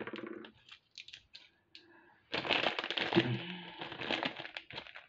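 Clear plastic bag of small glass seed beads being handled: the plastic crinkles and the beads rattle and click. There are a few scattered clicks at first, then a dense crinkling rattle from about halfway in.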